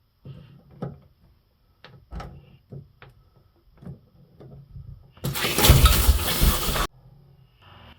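Short metallic clicks and knocks of channel-lock pliers working on a faucet cartridge, then, about five seconds in, a loud rushing noise lasting under two seconds that cuts off abruptly.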